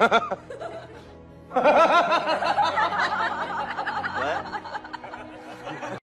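Human laughter, a fit of chuckling and snickering, starts about a second and a half in and runs for about four seconds over background music.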